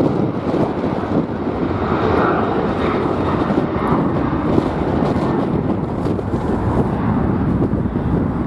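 Jet airliner engines running as a plane passes, heard through heavy wind buffeting the microphone.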